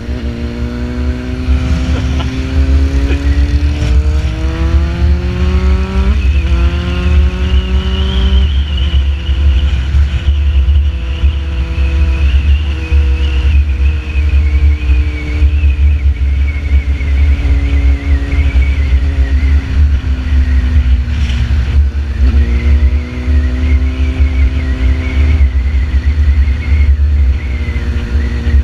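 Sport bike engine accelerating hard, its pitch climbing with a gear change about six seconds in and another about eight seconds in. It then holds at cruising revs that slowly sag, and pulls up again about 22 seconds in. A heavy, steady wind rumble on the microphone runs underneath.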